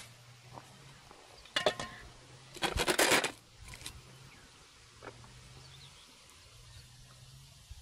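Tableware being handled: a short clatter about a second and a half in, then a louder, quick run of clinks about three seconds in, followed by a few faint ticks.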